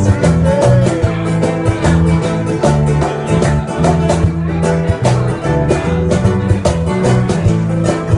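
A live rock band playing, with guitar over a bass line and a steady drum beat.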